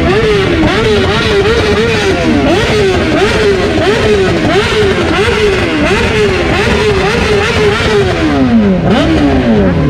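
BMW sport motorcycle engine revved in quick throttle blips, rising and falling about twice a second, before the revs drop away slowly toward idle near the end.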